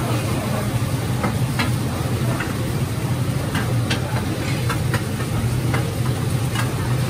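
Metal spatula scraping and clinking against a large wok as oyster omelette fries, in irregular strikes about once a second. Underneath runs a steady low roar.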